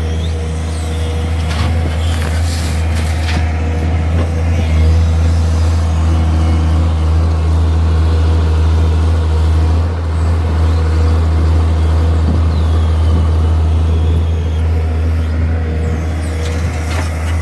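TATA Hitachi EX130 excavator's diesel engine running steadily under load while it works. A few sharp knocks sound in the first few seconds and again near the end.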